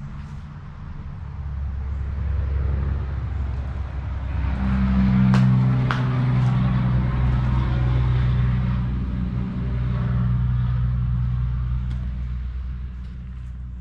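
Excavator's diesel engine working under load. It builds up over the first few seconds and eases back near the end. Two sharp cracks sound about five and six seconds in.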